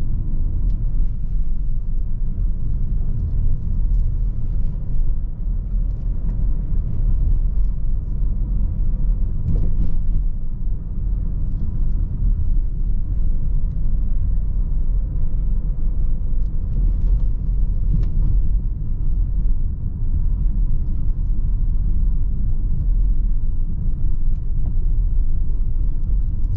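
Inside the cabin of a 2019 Audi Q3 with a 2.0-litre four-cylinder diesel and automatic gearbox, driving along: a steady low rumble of engine and road noise. A few faint ticks or knocks come through, one about ten seconds in and another a little later.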